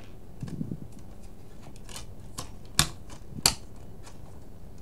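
Sharp plastic clicks and taps as a Blu-ray box set's discs and disc trays are handled, with two louder clicks a little under a second apart past the middle.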